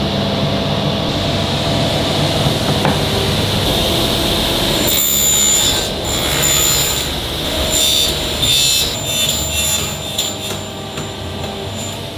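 Table saw running, its blade cutting through wooden panels in several passes from about five seconds in, each cut adding a hiss and a high steady tone over the hum of the machine.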